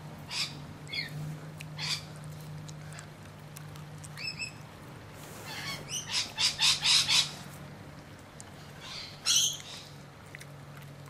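Orange squeaky toy snake squeaking in short high squeaks: a few scattered ones, then a quick run of five about six seconds in, and one more near the end.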